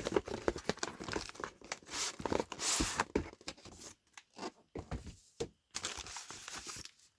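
A small cardboard box being opened and its contents handled. There is irregular rustling and crinkling of packaging with a tearing sound and scattered light knocks, busiest in the first half.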